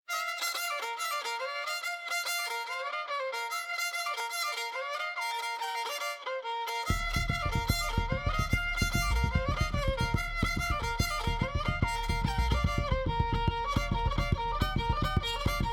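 Music with a fiddle-like bowed string melody. A bass line and a steady beat come in about seven seconds in.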